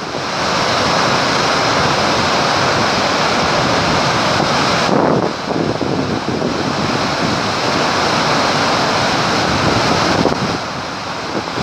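Muddy flash-flood water plunging over a canyon lip as a waterfall: a loud, steady rushing noise that dips briefly twice, with wind buffeting the microphone.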